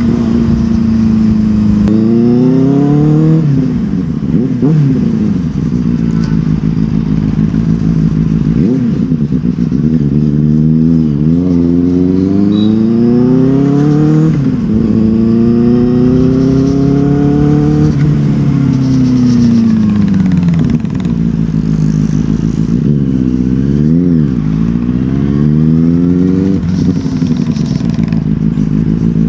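Benelli TNT 600i's inline-four engine under way in traffic, its pitch climbing as it accelerates through the gears and dropping back again and again, with a few quick throttle blips.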